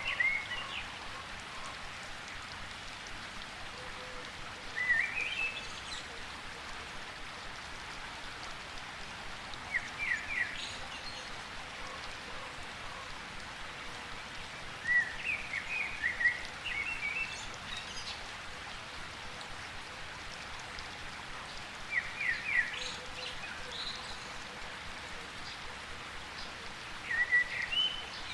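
Rainforest ambience: a steady patter of rain, with a bird calling short bursts of chirpy notes about every five or six seconds.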